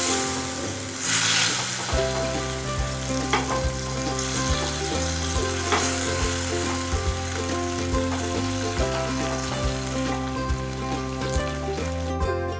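Hot oil sizzling as tomato pieces, garlic cloves and a dried red chilli fry in a nonstick pan. A wooden spatula stirs them, with a few brief scrapes. Background music plays underneath.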